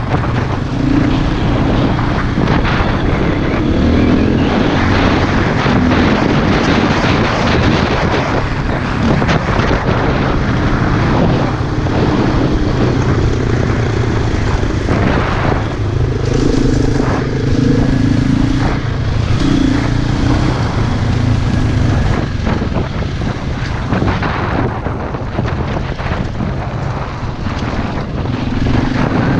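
Single-cylinder four-stroke enduro motorcycle engine running under way, its pitch rising and falling with the throttle, with wind noise on the microphone.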